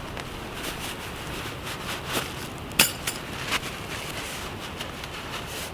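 Several short, sharp clicks and light clinks of small hard objects being handled, the loudest a little under three seconds in, over a soft outdoor noise background.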